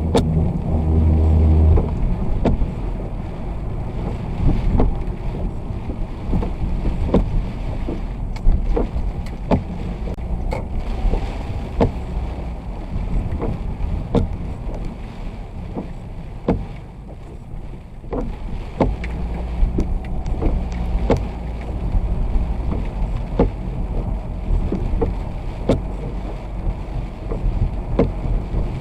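A vehicle driving on a wet road in the rain: a steady low rumble of engine and tyres with a hiss of spray and wind. An engine note stands out in the first couple of seconds, and scattered sharp ticks run all through.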